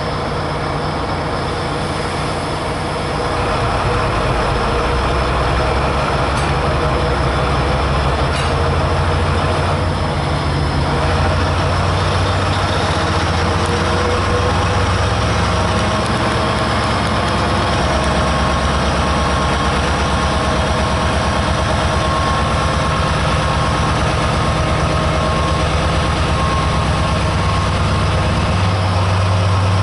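Freightliner Class 70 diesel locomotive's GE PowerHaul V16 engine running with a steady low throb. It grows louder about three seconds in and changes pitch slightly a couple of times.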